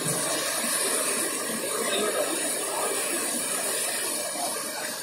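Steady hissing rush of water as cars plough through a flooded street, pushing wakes of floodwater.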